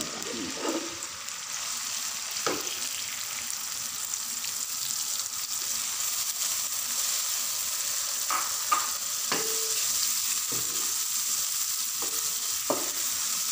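Sliced onions sizzling in hot oil with cumin seeds in a wok, stirred with a slotted spatula that knocks against the pan now and then, most often in the second half. The onions are being fried toward light brown.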